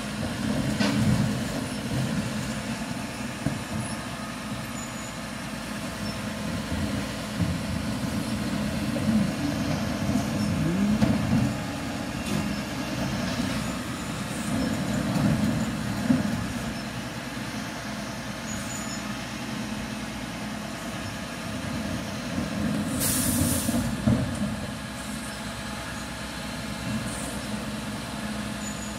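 Mercedes-Benz Econic recycling lorry's diesel engine running, its level swelling and easing several times, with a short sharp air hiss about three-quarters of the way through, typical of the air brakes releasing.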